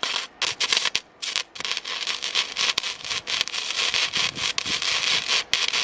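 Flux-core wire welder arc crackling and sputtering in irregular, stop-start bursts, as parts of a steel hog trap are tack-welded.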